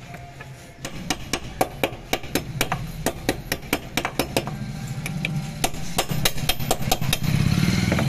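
A run of sharp metallic taps or knocks, a few a second and unevenly spaced, over an engine running that grows louder near the end.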